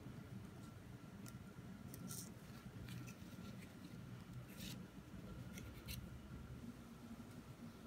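Faint scattered ticks and rustles of stiff card photocard frames being handled by hand and laid down and slid on a desk, the clearest about two and four and a half seconds in, over a low steady hum.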